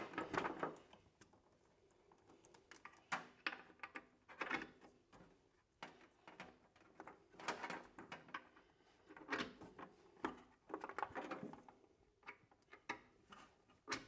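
Faint, scattered clicks and rustles of electrical cables and plug connectors being handled and pushed onto the electrodes of a steam humidifier's cylinder, coming in short separate bursts with quiet gaps between.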